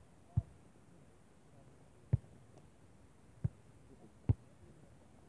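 A volleyball being struck four times in a beach volleyball rally: short, dull thumps of hands and forearms on the ball, each a second or two apart.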